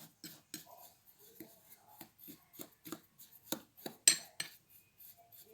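Tablespoon stirring a dry mix of ground coffee, sugar and baking soda in a cup: quick repeated scraping strokes, about three a second, with clinks of the spoon against the cup, the loudest clink about four seconds in.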